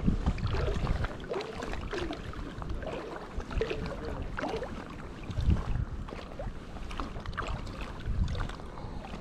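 Water lapping and splashing against a float tube, with gusts of wind buffeting the microphone.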